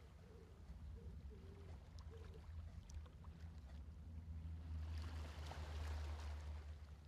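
Soft ocean waves washing in and drawing back over a steady low rumble, with one larger swell about five seconds in.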